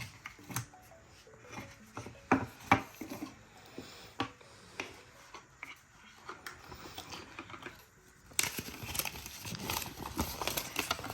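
Handling noise from unpacking a wireless microphone kit: scattered light clicks and knocks of a small cardboard box and its parts, then about eight seconds in a denser crackling rustle as the folded paper user manual is pulled out and opened.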